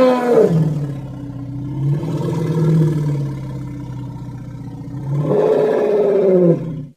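Imitation Columbian mammoth call: one long pitched bellow that starts loud and high, drops to a steady low drone, swells up again about five seconds in, and cuts off suddenly near the end.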